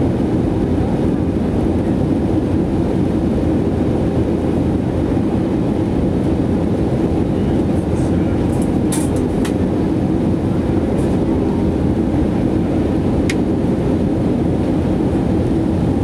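Steady cabin roar of an Airbus A320neo in descent, heard at a window seat over the wing: the Pratt & Whitney PW1127G geared turbofan and rushing airflow. A few faint clicks come in the second half.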